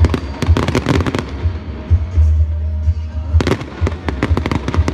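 Fireworks display: shells bursting in quick clusters of sharp bangs and crackles, one dense volley about a second in and another about three and a half seconds in, over a continuous deep rumble.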